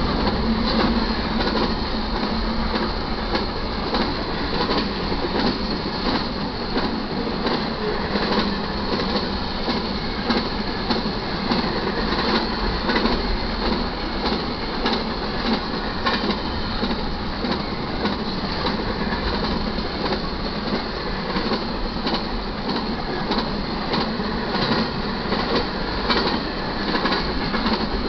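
Double-stack intermodal freight cars rolling steadily past: a continuous rumble and clatter of steel wheels on the rails, with rapid clicks throughout.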